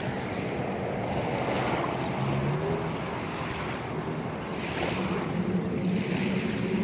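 Ocean waves washing in, swelling a few times, with a steady low hum underneath.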